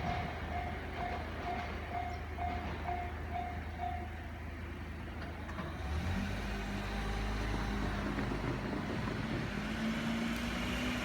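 Japanese railway level-crossing warning bell ringing about twice a second, over the low hum of waiting road traffic; the bell stops about four seconds in. About six seconds in, a road vehicle's engine pulls away across the crossing, its pitch stepping up near the end.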